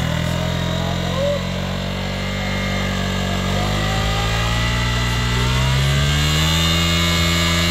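KTM Duke 200 single-cylinder engine revving hard: steady for a few seconds, then its pitch climbs over about two seconds from roughly three and a half seconds in and is held high as the burnout is built up.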